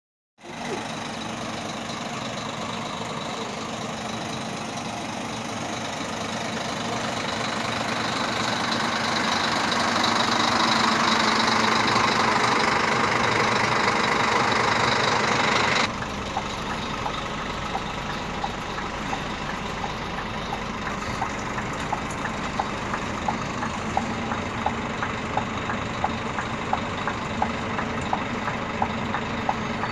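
Scania coach's diesel engine idling steadily; it grows louder over the first half and drops suddenly about halfway through. From about two-thirds of the way in, a regular ticking about one and a half times a second runs over the idle.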